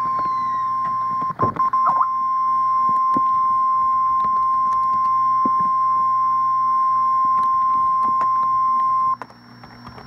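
National Weather Service warning alert tone, a single steady high-pitched beep near 1050 Hz, broken briefly by a stutter about a second and a half in and cutting off about nine seconds in. It is the attention signal that comes before a warning message, here a severe thunderstorm warning.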